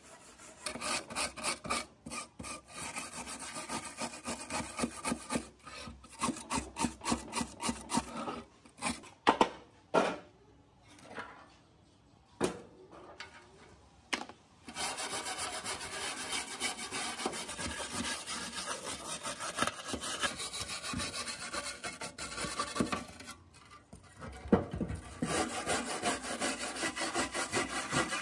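Hand scraper rasping flaking rust off sheet-steel fog-machine casing in quick repeated strokes. Near the middle the scraping gives way to a few separate sharp knocks, and it stops briefly shortly before the end.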